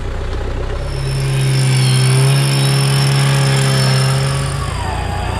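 A vehicle engine running at a steady speed, swelling louder for about three seconds in the middle.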